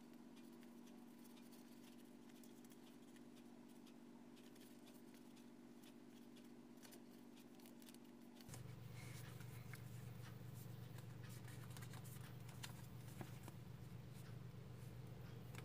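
Faint rustling and crinkling of origami paper as it is folded and creased by hand. A low steady hum lies beneath it and shifts lower about halfway through.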